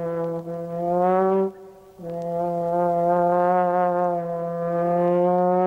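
Low brass, trombone-like, playing long held low notes in the film score, with a short break about a second and a half in before the next long note.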